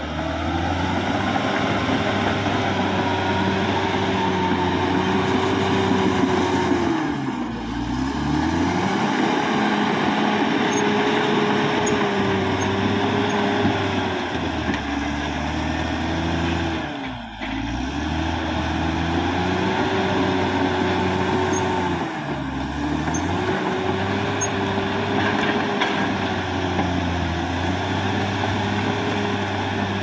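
Caterpillar D6R XL bulldozer's diesel engine running hard as the machine pushes soil and brush with its blade, with a whine that rises and falls. The engine note drops briefly and recovers three times: about a quarter of the way in, just past halfway, and about three quarters through.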